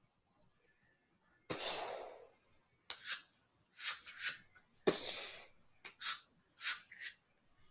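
Gunshot sound effects made with the mouth: two long breathy blasts, about a second and a half in and again about five seconds in, with several short sharp puffs between and after them.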